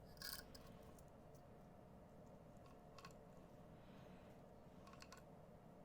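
Near silence with a few faint, short handling clicks as a necklace cord is worked by hand: one just after the start, a few light ticks in the middle and a pair about five seconds in.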